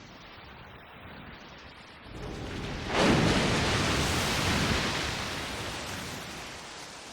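A dramatic TV-drama sound effect: a rumbling swell builds about two seconds in, then breaks into a sudden noisy crash that dies away slowly over several seconds.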